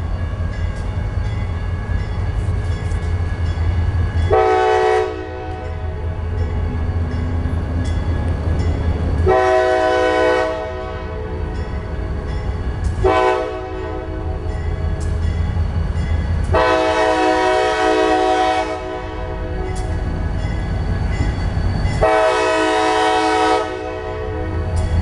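CSX freight locomotive's air horn sounding five blasts, each a chord of several steady tones: the first about four seconds in, then a longer one, a short one, and two more long ones near the end. A steady low rumble runs underneath.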